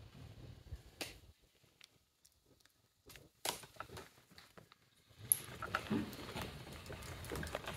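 Scattered light taps and clicks in a quiet stone room, almost silent for a second or two, then thickening into a busier run of small knocks and rustling about five seconds in.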